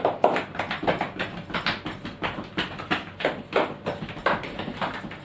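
A quick, irregular run of thumps, about three or four a second.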